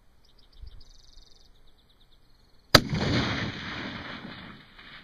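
A single rifle shot from a Ruger M77 VT in .243 Winchester, about three seconds in, followed by a long echo that fades over about two seconds.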